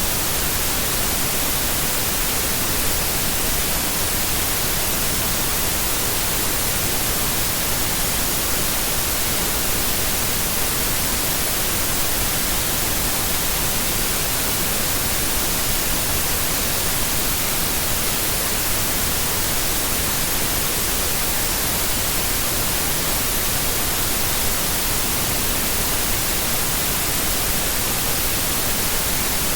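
Steady white noise: an even, unbroken hiss, strongest in the high end.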